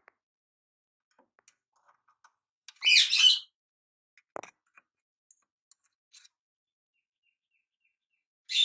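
A bird chirping: one short, loud, high call about three seconds in and another at the very end, with faint scattered ticks in between.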